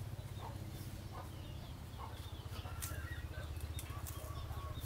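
Chickens clucking and calling over a steady low hum, with a few sharp clicks in the second half.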